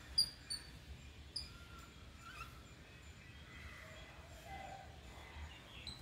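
Babblers calling: a few short, sharp, high chirps in the first second and a half, then fainter scattered calls.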